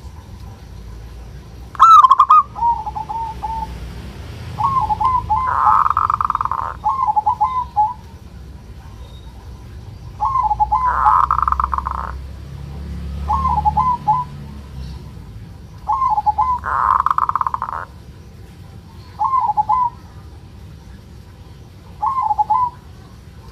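Zebra dove (perkutut) giving short trilled coos every few seconds. Three times it gives a longer, louder, harsh rasping 'kerot' call, the grating call of an aroused male in breeding condition.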